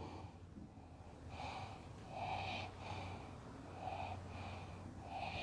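Dry-erase marker writing on a small whiteboard: a series of faint, short, squeaky strokes as a word is written out.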